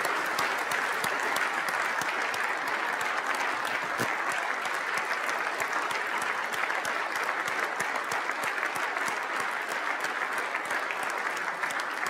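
Large audience of legislators giving a sustained standing ovation: dense, steady applause that carries on throughout.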